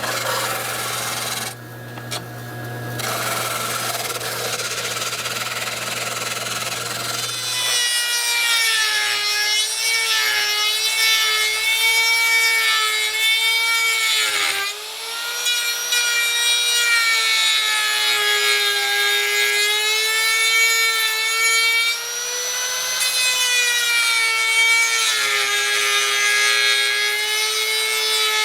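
A power tool's electric motor running on a homemade triac speed controller. It hums low at first, then about eight seconds in it speeds up to a steady high whine that wavers in pitch and dips briefly twice.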